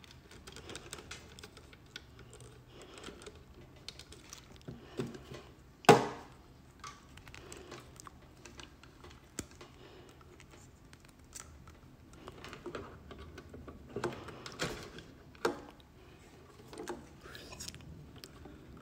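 Handling noise of a wireless microphone receiver and its cables and plugs: scattered small clicks, taps and rustles, with one sharp knock about six seconds in.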